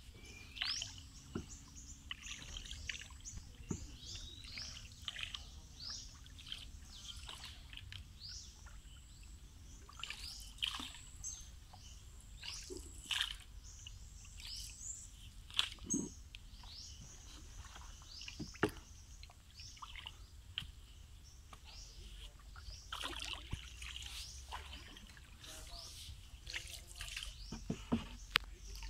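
Birds chirping in many short, quick, falling calls, over a thin steady high whine, with now and then a soft slosh of water from the paddled boat.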